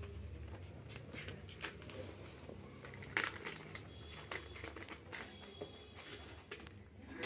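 Quiet, irregular clicks and rustles of an Indian spitz puppy pawing at, mouthing and picking up a small plastic toy on a cloth-covered floor, with the patter of its paws.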